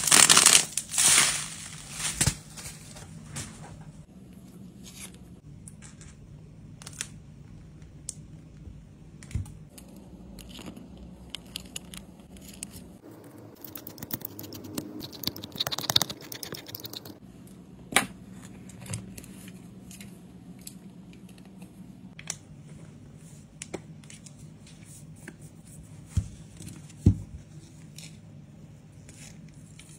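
Bubble wrap twisted and popped in the hands: a loud crackle in the first second or two. Then scattered small clicks and taps of a precision screwdriver and metal phone parts, with a longer rustle about halfway.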